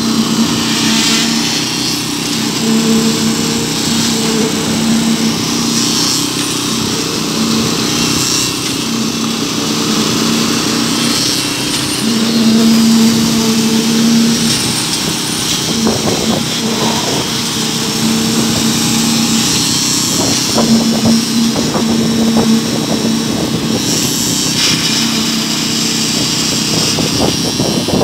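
Concrete poker vibrator running as it consolidates freshly poured concrete: a steady engine drone with a hum that grows louder at intervals.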